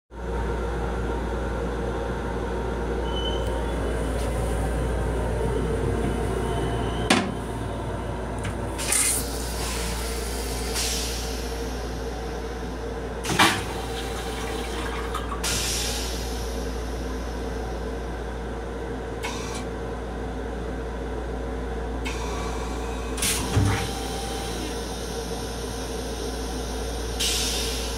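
Steady low rumble of an M7 commuter railcar heard inside its small restroom, with a few sharp knocks and several short hissing bursts on top.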